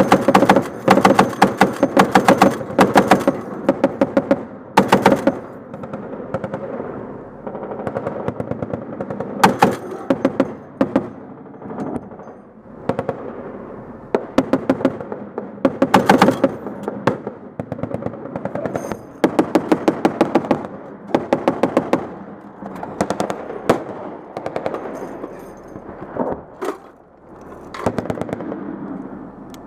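M2 .50 caliber heavy machine gun firing repeated bursts of rapid shots, some short and some longer, with brief pauses between them.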